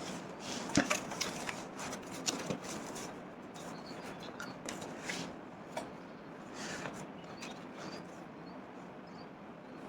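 Packaging being opened and handled: rustling with scattered clicks and light knocks, the sharpest knock about a second in.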